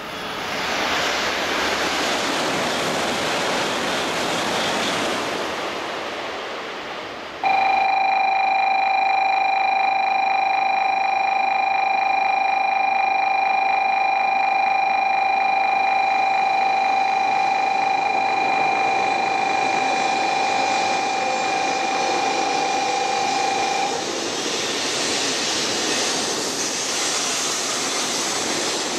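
A rushing Shinkansen train noise rises and then fades. About a third of the way in, a steady electronic tone of several fixed pitches starts abruptly and holds for about sixteen seconds. Near the end the rushing of an N700S Shinkansen pulling into the platform builds up again.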